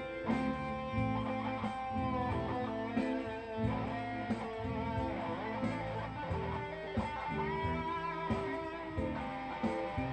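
Instrumental blues-rock music: an electric guitar plays a lead of held, bent notes over a low bass line.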